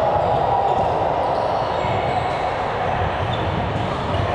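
Steady echoing din of a game in progress in an indoor gym, with low thuds of play and faint voices in the hall.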